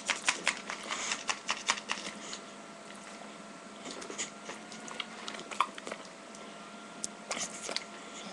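English bulldog snapping and chomping at bubbles: a quick run of jaw snaps and wet mouth clicks in the first two seconds or so, then scattered single snaps.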